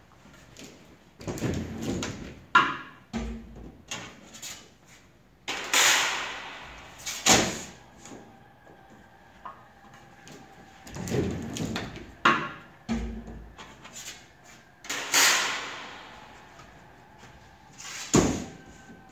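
Flatbed screen-printing press printing on sheet metal: the squeegee drawn across the screen in a roughly one-second sweep, then a sharp knock as the hinged screen frame is raised or lowered. The cycle repeats four times, about every five seconds.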